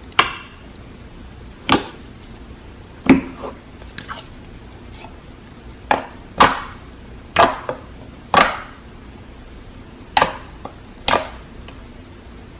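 Crisp cutting strokes into a brittle material: about ten sharp crunches at uneven intervals, some coming in quick pairs.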